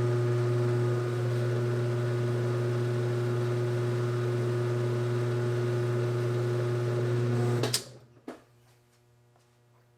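Whirlpool washer's motor running with a steady hum while its worn clutch slips and fails to turn the spin basket. The hum cuts off sharply near the end, followed by a single click.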